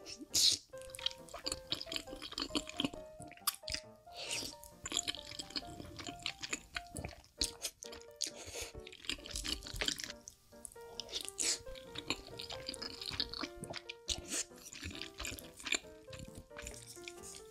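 Close-miked wet eating sounds: slurping, squishing and chewing of creamy fettuccine alfredo, in many short clicks and smacks. Soft instrumental music with short plucked notes plays underneath.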